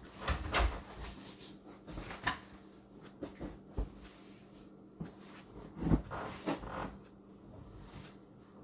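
Scattered short knocks, thumps and rustles of objects being handled and moved around, the strongest about six seconds in.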